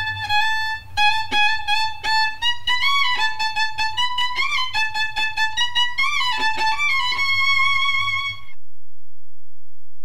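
Solo violin playing a quick, lively melody of short separate notes in a high register, stopping abruptly about eight and a half seconds in.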